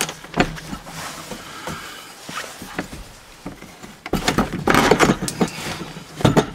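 Knocks, clunks and rattles as a truck's driver's seat is worked loose from its bolts and pulled out of the cab. Scattered single knocks give way to a dense clattering stretch about four seconds in, with one more hard knock near the end.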